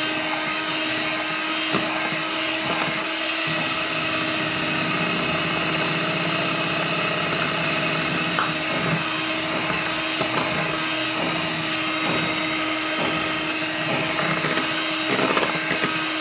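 Seven-speed electric hand mixer running steadily, its beaters whipping an egg-and-sugar cake batter, with a constant motor hum.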